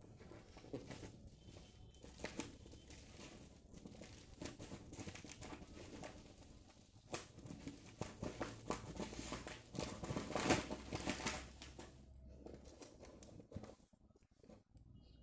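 Plastic bubble-wrap packaging crinkling and crackling as it is handled and pulled open. The crackles come irregularly, are loudest about two-thirds of the way through, and die down near the end.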